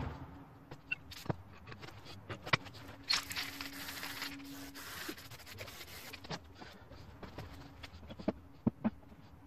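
Aerosol spray paint can hissing for about three seconds, starting about three seconds in. Scattered clicks and knocks of cans and tools handled on the work table run around it, with a few sharper taps near the end.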